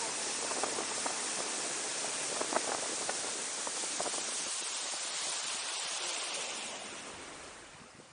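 Steady rushing hiss of river water with a few small splashes, fading away over the last second or so.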